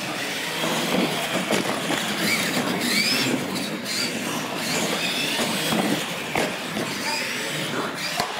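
Electric R/C monster trucks racing on a concrete floor: motors whining, with several short whines rising in pitch as they accelerate, over a steady rush of tyres and drivetrain noise. A few sharp knocks in the second half.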